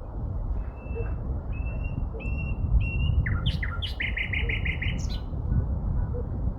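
A sparrow singing one song: four clear, level whistled notes, then a few quick falling notes, then a fast trill of about seven notes that ends about five seconds in. A steady low rumble runs underneath.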